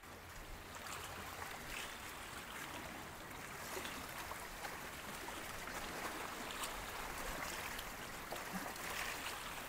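Steady wash of seawater against jetty rocks, an even rushing noise with faint small splashes.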